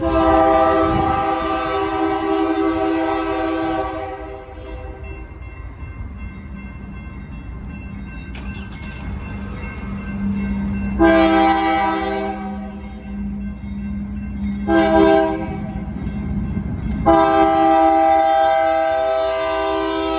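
Union Pacific diesel locomotive's multi-chime air horn sounding the grade-crossing signal, long, long, short, long, over the low rumble of the passing train. The first blast lasts about four seconds, the second about a second, then a brief short one, and the last long blast begins a few seconds before the end.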